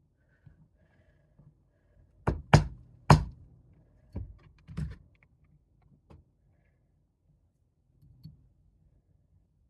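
A hammer knocking at a pin stuck in an airsoft pistol's safety to drive it out: three sharp strikes a little over two seconds in, then a few lighter knocks spread out after them.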